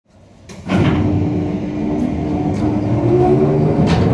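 Zamperla Demolition Derby ride machinery running: a steady rumble and shifting hum from the turning platforms and rolling guide wheels, which comes up from silence in the first second. Several sharp metal clacks sound over it.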